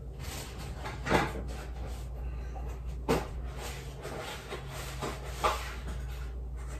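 Kitchen handling noises from someone moving about off to the side: three short, sharp knocks roughly two seconds apart, like cupboard or fridge doors and items being set down, over a steady low hum.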